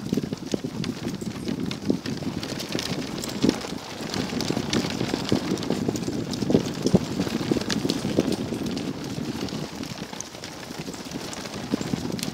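A Sacco dog wagon pulled by three dogs rolling over a dirt and gravel trail: a steady rumble of wheels on the ground, with the frame rattling in many small clicks, along with the patter of the running dogs' paws.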